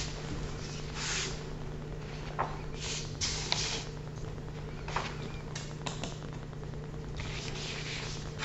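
Quiet room tone with a steady low electrical hum, broken by a few faint brief rustles and small clicks.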